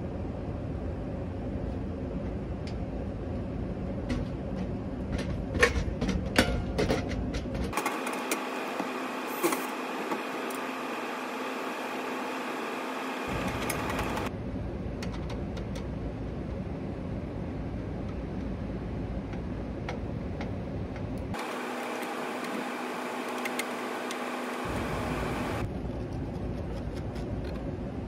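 Steady mechanical hum with a low rumble, broken by a cluster of sharp metallic clicks and knocks about four to seven seconds in as tools work on a sheet-metal electrical disconnect box. Twice the low rumble drops away for a few seconds, leaving a thinner, steadier machine tone.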